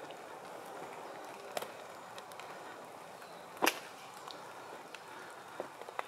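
Footsteps through forest undergrowth, with sharp snaps of twigs and sticks underfoot, the loudest a little past halfway, over a faint steady hiss.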